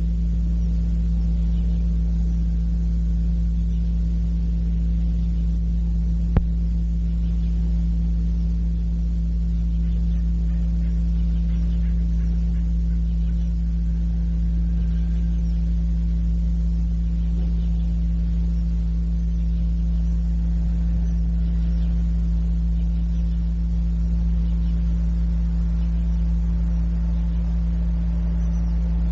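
Steady low electrical hum on an old cassette recording, a stack of even tones with faint tape hiss above, unchanging throughout. A single sharp click about six seconds in.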